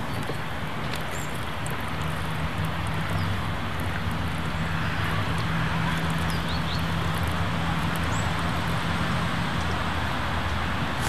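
Steady hum of distant road traffic, with a few faint short bird chirps.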